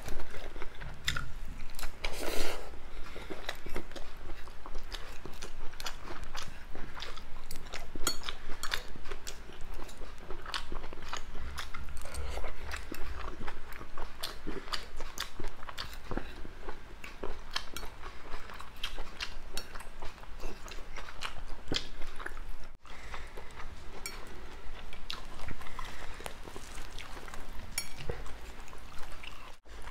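Close-up eating sounds: chewing mouthfuls of crepe pizza, with many short clicks and scrapes of a fork and knife on the plate.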